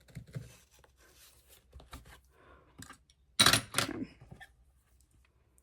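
Folded paper and a book being handled while sewing holes are poked through the fold of a paper signature: light rustles and taps, with one louder rustle and knock about three and a half seconds in.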